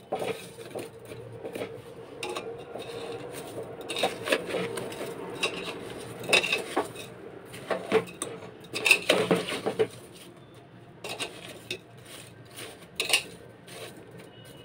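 A metal spoon scraping and clinking against a stainless steel pot as whole amla (Indian gooseberries) and sugar are stirred together. The clinks come irregularly, busiest in the middle and quieter near the end.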